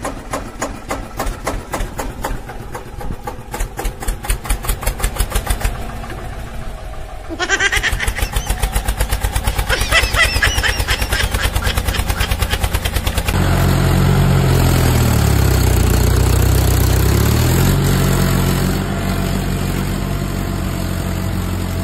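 Small engines of homemade mini farm machines running: first a mini tractor's engine putting along with an even, pulsing beat, then, about two-thirds of the way through, the engine of a homemade mini combine harvester running with a steadier hum whose pitch dips and then rises again.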